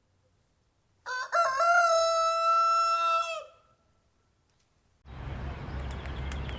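A rooster crowing once: a short broken start, then a long held note of about two seconds that drops away at the end. About five seconds in, a steady noisy outdoor background with faint clicks begins.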